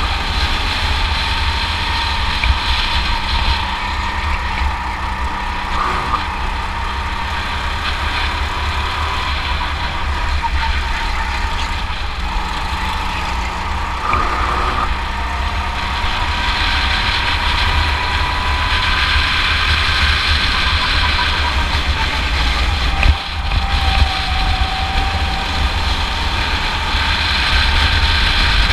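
Rental go-kart engine running under throttle, heard from the kart itself, over a heavy low rumble. Its drone climbs slowly in pitch for about twenty seconds, drops as the kart slows, then picks up again near the end.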